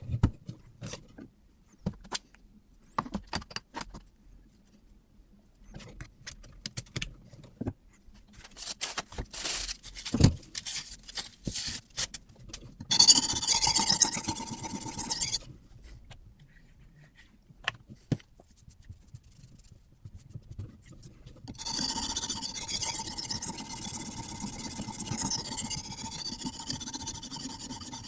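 Sharpening stone of a guided knife-sharpening system rubbed back and forth along a carbon steel knife blade, a dry scraping hiss with a thin ringing tone. The first half is scattered clicks and knocks of handling the rig. A short run of strokes comes about halfway, and steady stroking resumes about three quarters through.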